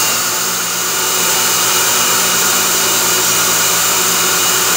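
Themac toolpost grinder running at speed with a steady high-pitched whine, while the Clausing lathe turns the three-jaw chuck under power feed. The grinding wheel is in light contact with only one jaw per revolution, which shows the taper is being ground out toward concentric.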